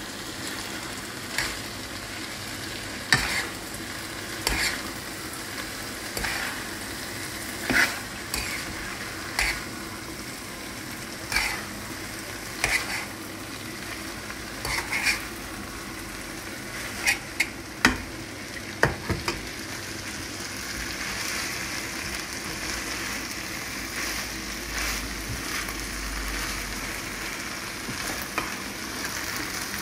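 Spaghetti and bolognese sauce frying in a non-stick pan, sizzling steadily, with irregular scrapes and taps of a spatula against the pan as the pasta is tossed. The sizzle grows louder in the last third.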